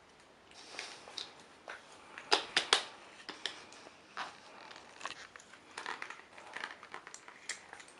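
Toys being moved about in sand: irregular scraping and rustling with small clicks and knocks, and a quick run of sharper clicks about two and a half seconds in.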